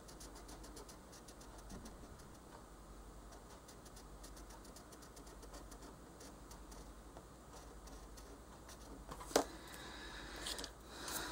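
Colored pencil rubbing on paper in many quick, small strokes, faint and scratchy. A sharp click a little after nine seconds, then louder handling noise near the end.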